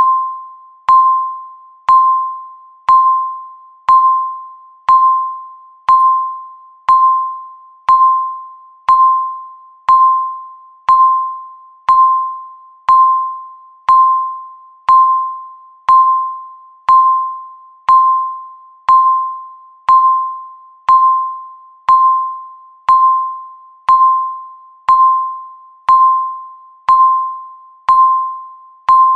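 Countdown timer's electronic beep, one ringing tone struck once a second that fades away before the next, marking each second left on the timer.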